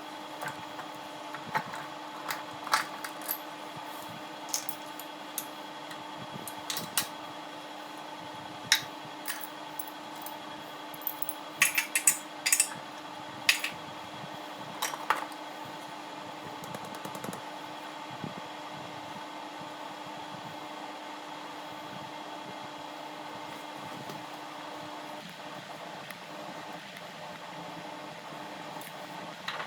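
Metal hand tools clicking and clinking against metal parts, a quick cluster of clinks about twelve seconds in and fewer in the second half, over a steady mechanical hum.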